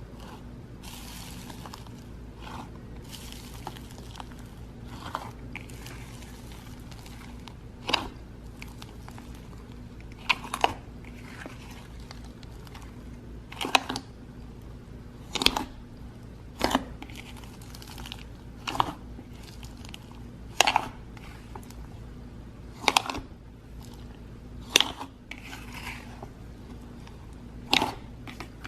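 Boba slime being squeezed and poked by hand, giving sharp pops about every two seconds, with soft crinkly crackling between them in the first few seconds.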